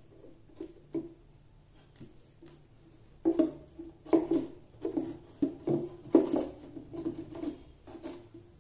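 Fibreboard back panel of an LG LK72B subwoofer being worked loose from the cabinet by hand: a run of knocks and scrapes of board against cabinet, a few at first and then several a second from about three seconds in.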